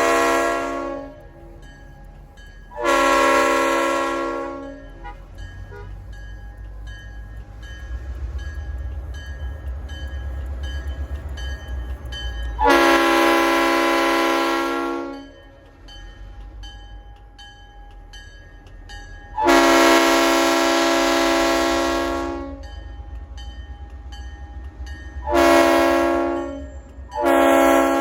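Diesel locomotive air horn blowing a series of blasts, several long and a few short, with the low rumble of the train running between them.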